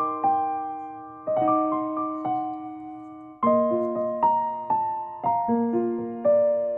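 Gentle background piano music: single notes and chords struck and left to ring, a new phrase about every second.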